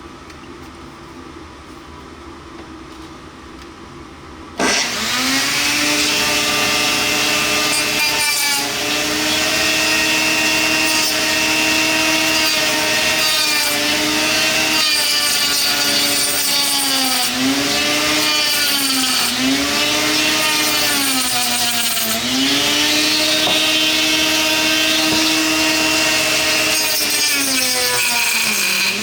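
A rotary tool with a cutting wheel starts about four and a half seconds in and runs with a steady whine. Its pitch dips and recovers again and again as the wheel bites into the PLA plastic under load.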